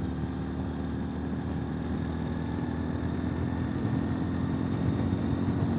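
Ural motorcycle's flat-twin engine running steadily while riding along a road, with a little rise in loudness toward the end.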